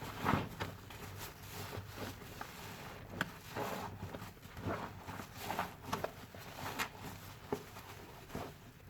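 A sponge soaked in lavender-scented soapy foam and fabric softener being squeezed over and over, giving short wet squishes about once or twice a second.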